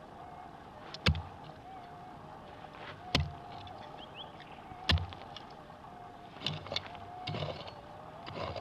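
Pick striking hard, stony red soil three times about two seconds apart, each a sharp hit, then softer scraping and crumbling of loosened dirt near the end. A faint, steady, slightly wavering tone runs underneath: the metal detector's threshold hum.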